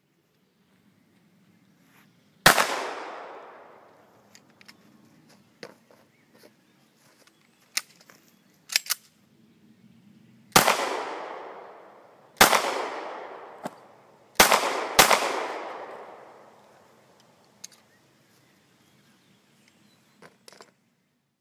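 Five pistol shots, each trailing off in a long echo: one shot, then four more about eight seconds later, the last two half a second apart. Light clicks come between the shots.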